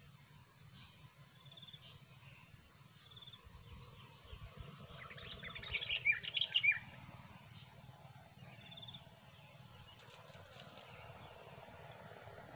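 Sooty-headed bulbul (kutilang) calling: a few short high notes, then a loud burst of rapid chattering calls about five to seven seconds in.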